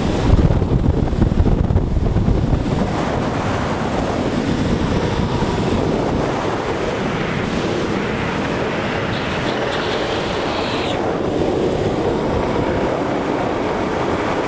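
Steady rush of wind over the microphone during a fast downhill skateboard run, buffeting hardest in the first three seconds, over the rolling roar of skateboard wheels on pavement.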